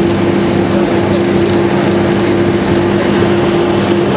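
Inside a KiHa 58 diesel railcar moving at speed: the steady drone of its DMH17H diesel engine, holding two even hum tones, over the train's running noise.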